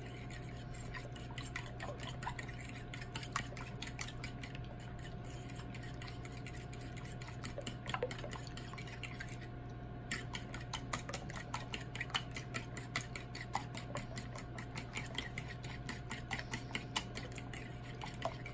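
Fork beating eggs in a white ceramic bowl: quick clinks and taps of the metal tines against the bowl, sparser at first and quicker and more regular from about halfway. A steady low hum runs underneath.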